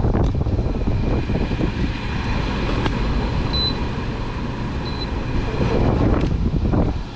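Window air conditioner running on fan only, its blower fan moving a steady rush of air.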